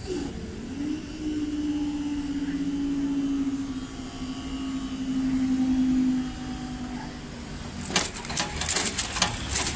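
Level crossing barrier motor humming steadily as the booms lift. The pitch dips briefly as it starts, then falls slightly, and the hum stops about six seconds in. Near the end comes a run of sharp clicks and knocks.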